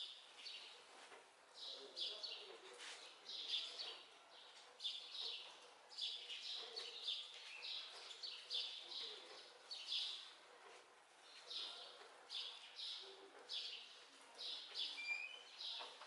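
Birds chirping: short, high chirps repeated about once or twice a second throughout.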